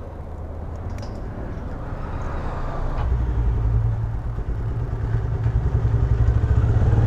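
Vehicle engine running with a low rumble as it gets under way, growing louder over the last few seconds.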